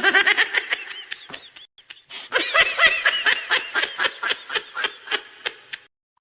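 High-pitched laughter sound effect: rapid, quick-fire giggles in two runs with a short break between, cutting off suddenly.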